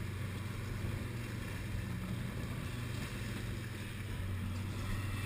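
Motorboat engine running steadily, with water washing along the hull.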